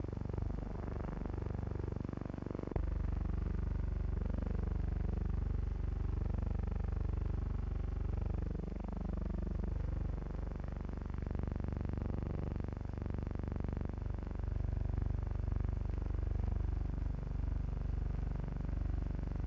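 Steady drone of an aircraft's piston engines heard from inside the cabin, the pitch wavering slightly. The level jumps abruptly about three seconds in.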